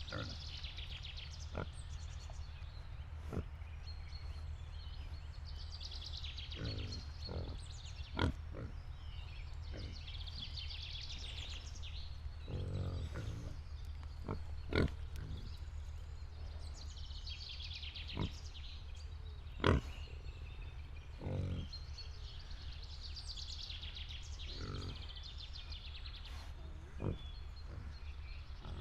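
Pigs in a pen giving short, low grunts every few seconds, among sharp knocks and clicks. A steady low hum and recurring bursts of high-pitched chatter run underneath.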